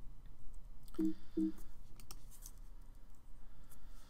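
A few light, scattered clicks from someone working a computer while the slide changes. About a second in there are two short low tones close together, over a faint steady low hum.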